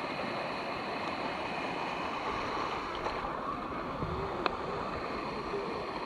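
Steady rush of river water flowing over travertine ledges at a waterfall, with one short sharp click a little past halfway.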